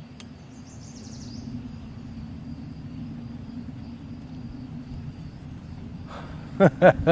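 Outdoor riverside ambience: a steady low rumble, with a bird's short high trill about a second in and a faint, steady high insect-like buzz.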